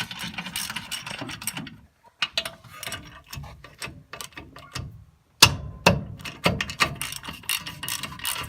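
Hand ratchet clicking in quick runs as the front brake caliper bracket bolts are worked loose. The runs are broken by two short pauses, with a loud knock about five and a half seconds in.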